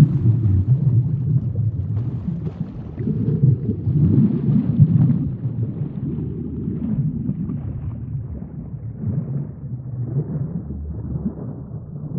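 Sea ambience: a low, muffled rumble of moving water that swells a few seconds in and then eases off.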